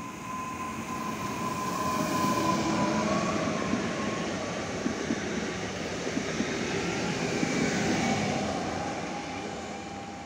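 ED78 electric multiple unit passing at speed: the rumble of wheels on rail swells as it comes by and fades as it goes away, with a few sharp wheel clicks over rail joints. A faint electric whine from the traction drive sits lower in pitch as the train recedes.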